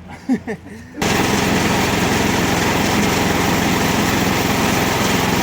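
Small gasoline engine of a Harbor Freight portable bandsaw mill running steadily at speed, starting abruptly about a second in.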